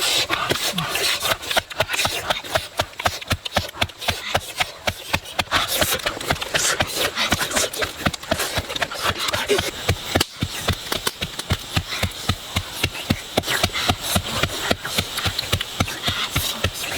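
Quick, uneven knocking and scraping strokes, several a second, of a tool working food or wood during cooking preparation.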